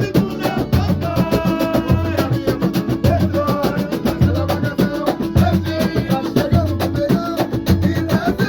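Samba-pagode band playing an instrumental passage: a steady percussion groove with a deep, regularly recurring bass beat and pitched melodic lines over it.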